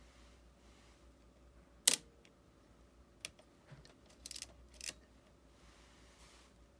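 Epson R-D1 rangefinder camera shutter firing once with a single sharp click about two seconds in. Lighter mechanical clicks follow over the next three seconds, including a short rattly run.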